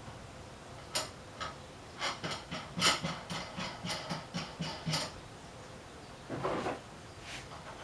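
Light clicks and taps of Ferris wheel parts on a threaded rod being handled and fitted. A quick run of them comes about two seconds in, and a short scrape follows near the end.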